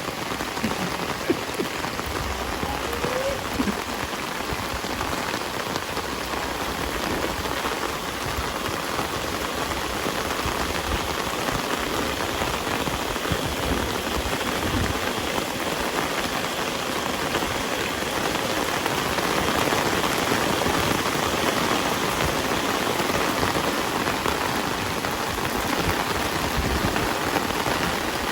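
Heavy rain falling steadily, a dense even hiss of drops hitting the ground and surfaces.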